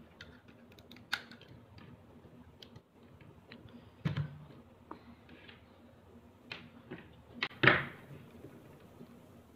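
Plastic mains plugs and adapters clicking and knocking as a USB charger is fitted into a plug adapter and pushed into a power strip socket, with cable handling. Two louder knocks come about four seconds in and near the end.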